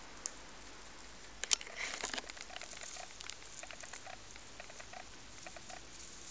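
Rabbits chewing dry meadow hay, a quick regular crunching of about four bites a second, with a louder rustle of hay about one and a half seconds in.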